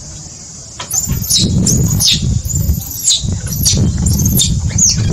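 High, sharp chirping calls, each sliding down steeply in pitch, about seven in quick succession over a steady low rumble.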